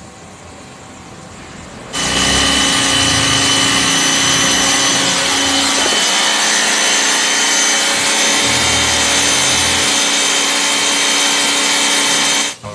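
Pressure washer running: the hiss of its high-pressure water jet spraying onto concrete, with a steady motor tone underneath, as moss is stripped off. It starts abruptly about two seconds in and cuts off sharply just before the end.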